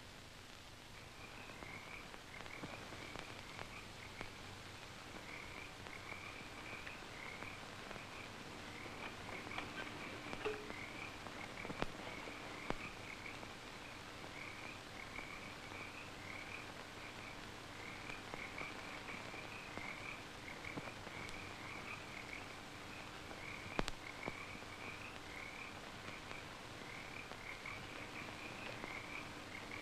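Night chorus of small frogs calling, a steady run of short chirps several times a second, over the hiss and occasional clicks of an old film soundtrack.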